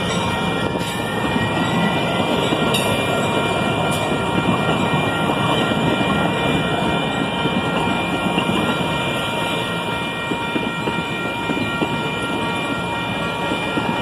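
Amtrak Pacific Surfliner bilevel passenger cars rolling past close by: a steady, continuous rumble of steel wheels on rail, with a few faint clicks.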